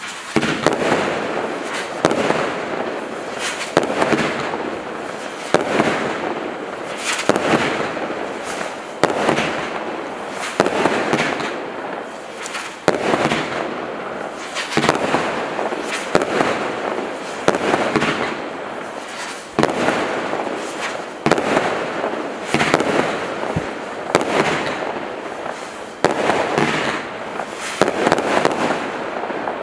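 Kimbolton 'Samurai' 19-shot firework cake firing, whirling silver tails rising to purple peony bursts. Shots come about every two seconds in a steady sequence, each a sharp bang trailing into about a second of fizzing rush.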